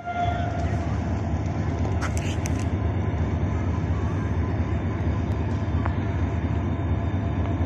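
HGMU-30 diesel locomotive working as it pulls a passenger train out of the station: a steady, loud low engine rumble.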